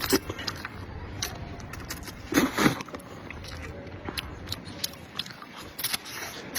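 A person eating spicy noodles with beef: chewing and mouth sounds, with scattered sharp clicks and a louder burst about two and a half seconds in.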